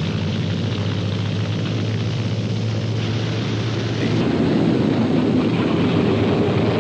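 Propeller airplane engine drone, steady with a low hum, growing louder about four seconds in.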